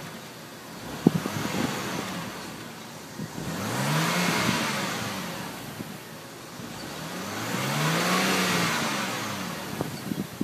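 2007 BMW 328xi's inline-six, heard at the exhaust tips through the stock muffler, idling and then blipped twice; each rev climbs and falls back to idle over about two seconds. A short sharp click sounds about a second in.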